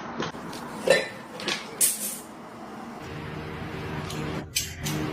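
A few light clinks and knocks, like dishes or a cupboard, about one to two seconds in, then a steady low hum from about three seconds in.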